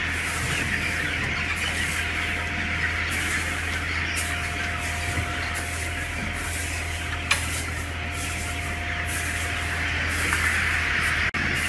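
Steady low mechanical hum under a constant hiss, with one sharp click about seven seconds in.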